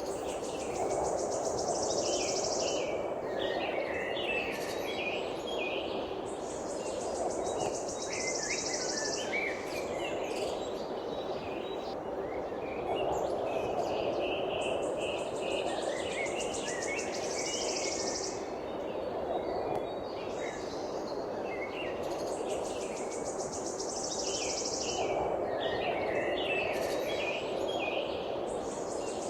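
Birds chirping and calling, with a high, fast buzzing trill of about two seconds that comes back roughly every six seconds, over a steady background rush.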